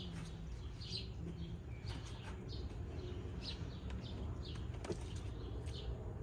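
Amana central air conditioner's outdoor condenser unit running with a steady low hum, while small birds give repeated short, high chirps.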